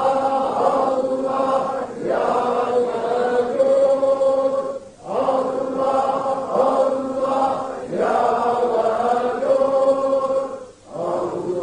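A man's voice chanting a Sufi vocal dhikr (remembrance of God) into a microphone. It comes in sustained, melodic phrases of about three seconds, with a short break for breath between each.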